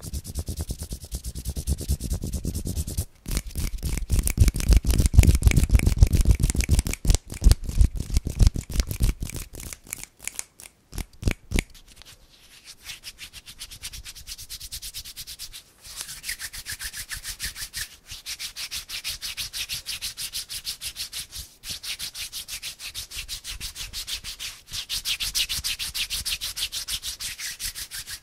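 Bare hands rubbing together close to a microphone in quick back-and-forth strokes, a fast swishing rhythm. The rubbing is fuller and deeper for a few seconds early on and turns to a brighter, higher hiss in the second half.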